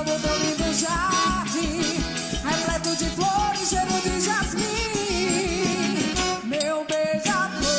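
Festa junina quadrilha music playing loudly, a steady bass drum beat under a wavering melody line; the music thins out briefly about six and a half seconds in, then comes back.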